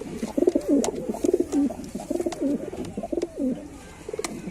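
Several domestic white pigeons cooing continuously, their low bending coos overlapping, with a few sharp clicks among them.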